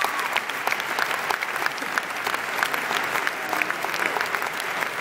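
A large audience applauding steadily, many hands clapping at once, as two guests are welcomed onto a stage.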